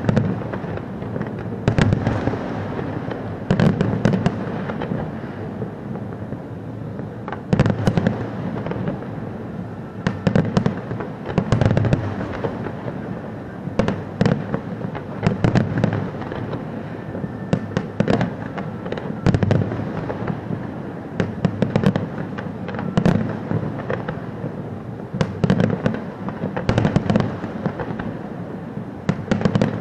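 Fireworks display: shells going off every second or two without pause, each a low boom, with crackling and sharp pops in between.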